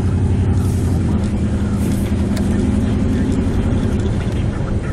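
Steady engine hum and road noise of a vehicle being driven, heard from inside the cab.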